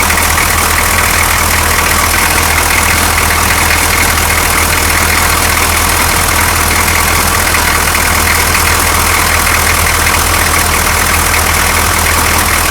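6.2L V8 diesel engine idling steadily, without stumbling, its newly fitted clear fuel line now full of fuel after the start.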